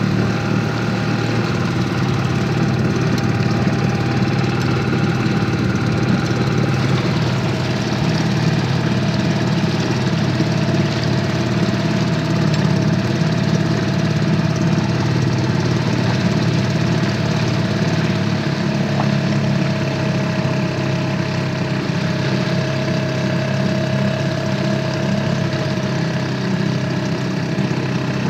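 Outboard motor of an inflatable boat running steadily under way, its note shifting slightly about seven seconds in and again about eighteen seconds in.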